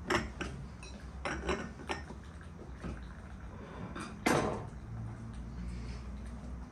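A glass tea cup and saucer being handled on a table, making a series of light clinks, with one louder knock about four seconds in.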